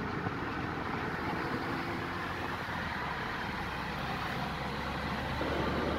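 Steady road and engine noise inside a moving car's cabin, with a faint hum that stops near the end.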